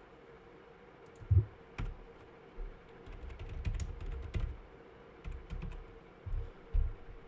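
Typing on a computer keyboard in irregular bursts of keystrokes, starting about a second in, with some keys struck hard enough to thump.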